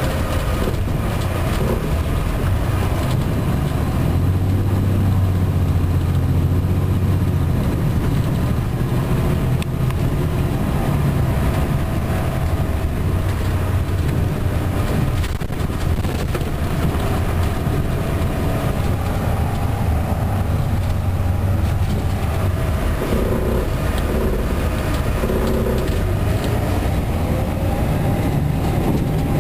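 Cummins ISM diesel engine of an MCI D4500CT coach running under way, heard from inside the passenger cabin along with road noise. A deep engine hum grows stronger about four seconds in for a few seconds, and again around twenty seconds in.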